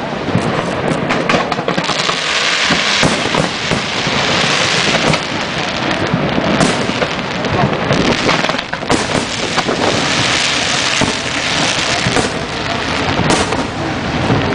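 Fireworks display: aerial shells bursting in quick succession, many sharp bangs over a continuous dense hiss. The hiss is heaviest about two to five seconds in and again around nine to twelve seconds.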